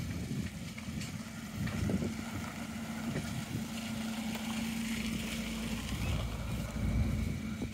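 A vehicle engine running steadily with a low hum, and wind noise on the microphone that grows stronger near the end.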